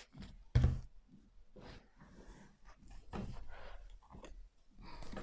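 A dull thump about half a second in, then soft rustling and handling noises, with a few light clicks, as a person bends down beside a table to pick something up from below it.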